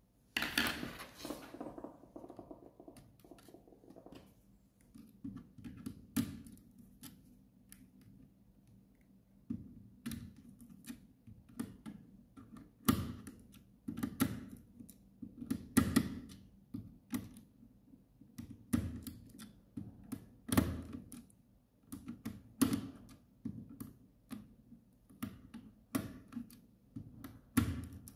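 Screwdriver working the screw terminals of a small contactor as a wire is fitted and clamped: irregular clicks and light knocks of the blade, screws and plastic housing.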